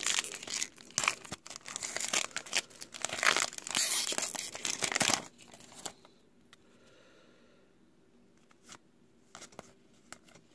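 A Topps trading card pack's wrapper being torn open and crinkled for about five seconds. After that it goes much quieter, with a few soft clicks as the cards are handled.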